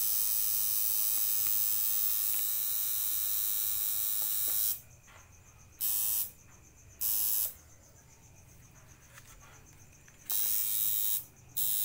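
Electric tattoo machine buzzing steadily as it inks the skin. It switches off about five seconds in, runs in two short bursts, and buzzes again from about ten seconds on, with one brief stop near the end.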